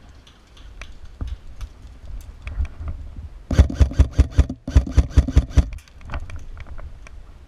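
Airsoft electric rifle, a Lancer Tactical LT-25 Gen 2, firing two rapid strings of shots about six or seven a second, each shot a sharp crack with the whir of the gearbox. They start about halfway through, with a brief break between the two strings. Fainter scattered shots are heard before and after.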